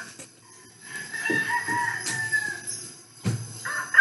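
Rooster crowing: one long, drawn-out call beginning about a second in.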